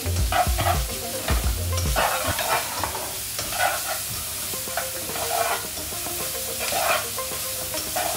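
Julienned carrot and courgette sizzling in sesame oil in a very hot wok, turned over and over with tongs, with a scraping stroke about once a second.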